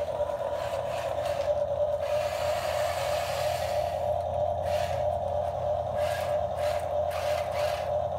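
A motor running steadily with a constant whine over a low hum, while scraping or rustling noises come and go, more often in the second half.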